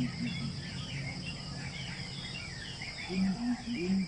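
Evening bush chorus: crickets trilling in a steady, high-pitched drone, over many short chirping bird calls and repeated short low calls that grow stronger about three seconds in.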